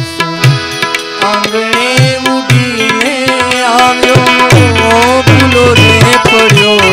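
Bhajan accompaniment: a harmonium playing the melody, with a hand drum beating out the rhythm and small hand cymbals (manjira) clinking in time. Around the middle the drum's low tone slides in pitch.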